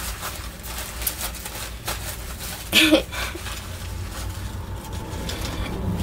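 Rustling and light clicks of small store-bought accessories and their packaging being picked up and handled, with a short voice sound about three seconds in.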